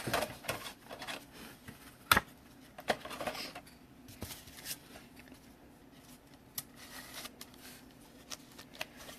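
Trading cards being handled at close range: soft rustling and sliding, with scattered sharp clicks and taps, the loudest about two seconds in.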